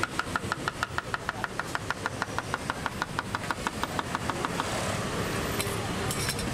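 Knife chopping rapidly on a wooden cutting board as bananas are sliced, about six even strokes a second over steady street noise; the chopping stops a little after four seconds in, followed by a few light clicks.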